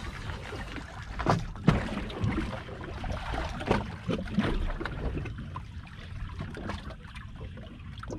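Small waves lapping and slapping against the stern of a stationary boat, in irregular splashes that thin out after about five seconds, over a steady low rumble.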